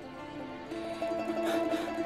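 Background score music: soft held notes that come in and swell about two-thirds of a second in.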